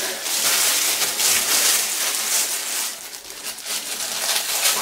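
Plastic-gloved hands rubbing permanent hair dye through the hair: a rustling, crackling hiss that comes and goes.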